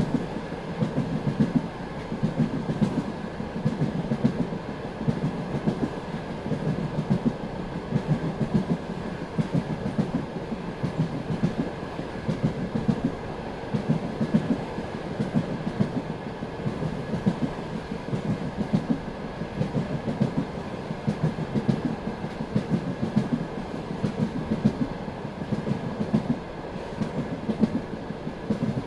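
Passenger railway carriage rolling along at speed, heard from aboard: a steady rhythmic clatter of wheels over rail joints with an even running rumble and hum.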